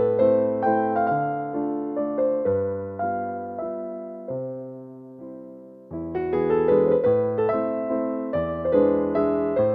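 Background piano music: struck notes that ring and fade. It thins out and dies down in the middle, then a fuller passage with low bass notes comes in about six seconds in.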